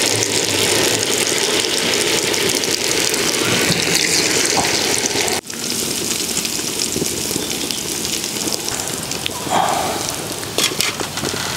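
Batter-coated green gram balls deep-frying in hot coconut oil, a steady sizzle that breaks off for an instant about five seconds in. A couple of short clicks come near the end.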